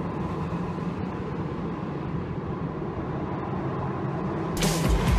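Car engine running at steady revs with road noise, heard from inside the car. Near the end, loud music cuts in over it.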